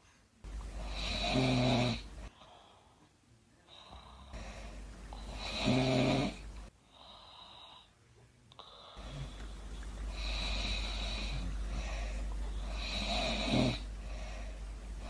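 A woman snoring, her snores coming about every four seconds, each swelling to a peak, with quieter breathing between them.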